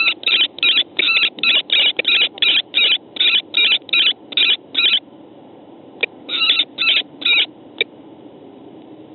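Female common kestrels calling in a rapid series of short repeated notes, about three a second, in a vocal dispute between two females. The calls break off about five seconds in, then resume for a handful of notes a second or so later.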